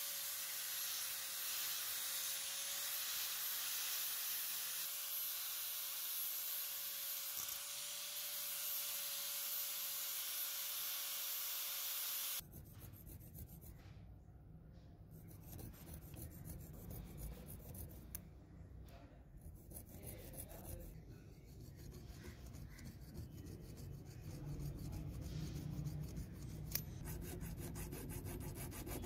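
Angle grinder with a flap disc running steadily with a whine, grinding a steel plier; it cuts off sharply about twelve seconds in. Then a hand file scrapes back and forth over the steel plier jaws, quieter and rasping.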